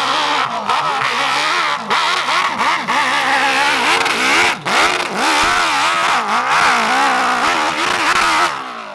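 Dirt bike engine revving hard at full throttle on a steep hill climb, its pitch swinging rapidly up and down as the rear wheel spins and bites in the dirt. The sound cuts off suddenly near the end.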